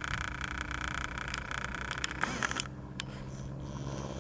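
Faint scraping and rustling as two pocket beagle puppies nose and root through dry leaves and dirt, with scattered small clicks over a steady low hum.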